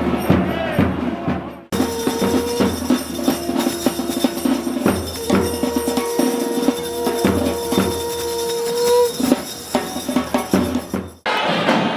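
Tamil temple procession music: a nadaswaram-style reed pipe holding long notes over fast thavil drum strokes and small cymbals. The sound breaks off abruptly about two seconds in and again near the end, then carries on.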